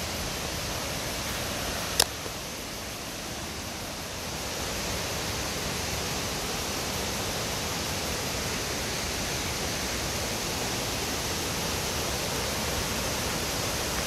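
Steady rushing roar of the Kaminari-daki waterfall, a falling water column about 30 m high, heard from the path above it and growing a little louder about four seconds in. A single sharp click about two seconds in.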